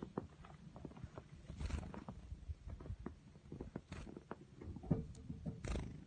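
Handling noise from a phone held by someone standing still: a low rumble with scattered small clicks and rustles of clothing, and three short rushes of noise, near two seconds in, about four seconds in and near the end.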